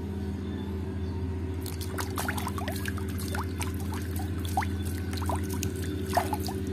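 Muddy water splashing and trickling in a plastic basin as a hand swishes a plastic toy through it, starting about a second and a half in. The splashing is a quick patter of small drips and sloshes.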